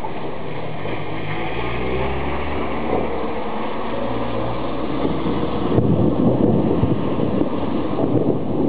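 Thunder rumbling through steady rain. A louder, rougher rumble sets in about six seconds in.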